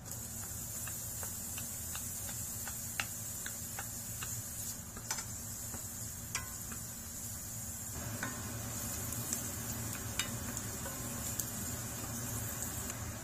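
Diced onion sizzling in hot oil in a stainless steel frying pan, a steady high hiss, while a wooden spoon stirs it with scattered light taps and scrapes against the pan. The sizzle fills out a little from about two-thirds of the way through.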